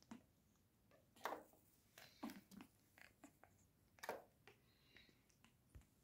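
Faint, scattered short clicks and taps from an African grey parrot at its ball toy, three of them louder, about a second, two seconds and four seconds in.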